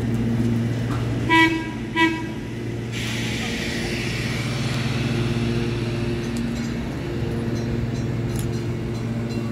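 Two short toots of a streetcar's warning signal about half a second apart, over a steady low hum. A hiss sets in just after and fades over a few seconds.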